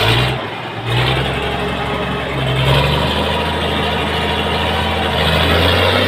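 Farm tractor's diesel engine running hard under heavy load, pulling a loaded trailer through deep mud. It surges at the start and again about a second in, then holds at high revs.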